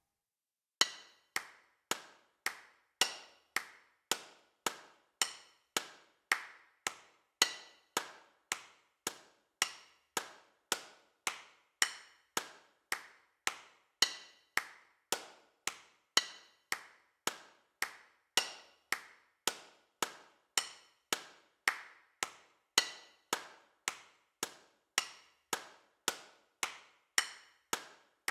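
Steady ticking: a sharp, briefly ringing click repeated evenly a little under twice a second.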